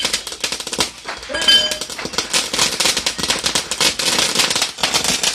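Ground fountain firework crackling, a dense run of rapid small pops as it sprays sparks, with a louder burst about a second and a half in.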